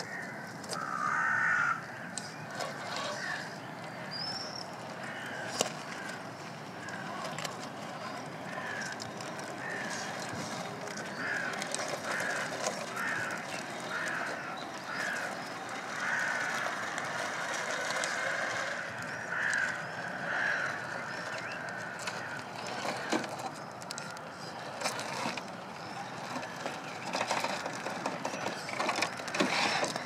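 A 1/8-scale RC rock crawler driving slowly over loose gravel: its small electric motor and gears whir while stones click and crunch under the tyres.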